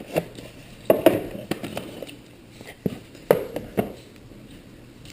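Cables and packaging handled during an unboxing: a scatter of light knocks, taps and clicks, loudest about a second in and again a little after three seconds.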